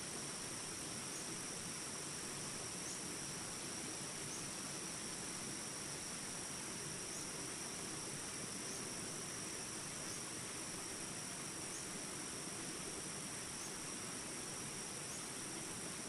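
Jungle ambience: a steady chorus of insects buzzing high and unbroken over the even rush of water in river shallows, with a faint chirp repeating about every one and a half seconds.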